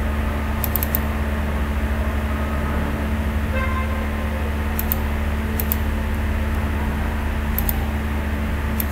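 A steady low hum with background hiss runs throughout. Over it come a few faint, sharp mouse clicks, several in quick pairs, as menu items and the front plane are selected.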